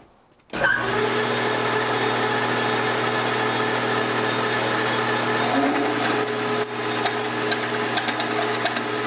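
Metal lathe starting up about half a second in and running steadily, its chuck spinning a steel nut. From about six seconds in a twist drill cuts out the nut's threads, adding a rapid high ticking chatter over the running lathe.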